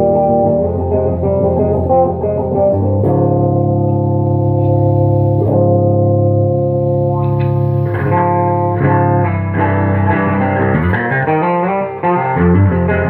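Electric guitar fitted with Dialtone pickups, played as a demo: ringing chords that change every couple of seconds, with notes sliding up and down in the last third.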